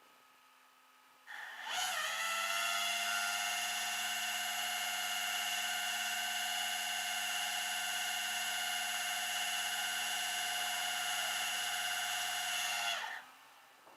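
An electric motor runs for about eleven seconds with a steady high whine. It dips slightly in pitch as it takes up load just after starting, and its pitch falls as it winds down and stops.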